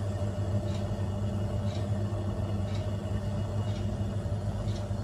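A steady low mechanical hum with faint light ticks about once a second.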